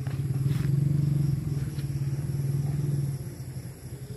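A motor vehicle's engine running with a steady low hum, strongest in the first couple of seconds and fading away about three seconds in.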